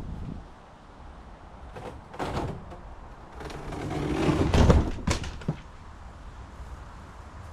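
Knocks, clunks and scraping of camper parts being handled and shifted during a pop-up camper teardown, with the loudest clunks about four to five seconds in.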